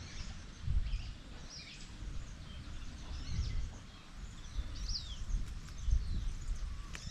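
Wild birds calling with short, high, downward-sweeping chirps, repeated every second or two, over irregular gusts of wind buffeting the microphone.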